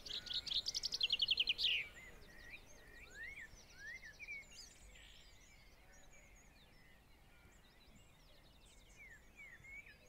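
Male chaffinch singing: a fast run of repeated notes ending in a quick flourish. Scattered quieter chirps and short trills of other small birds follow.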